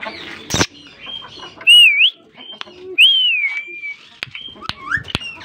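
Aviary parakeets calling: two loud, clear whistles about a second apart, the first rising then falling and the second falling, then short upward chirps near the end. A sharp knock comes near the start.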